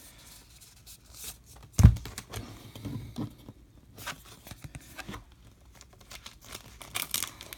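Cardboard baseball cards being slid, shuffled and flicked against each other in the hands, giving scattered short papery rustles and clicks. One loud low thump comes about two seconds in.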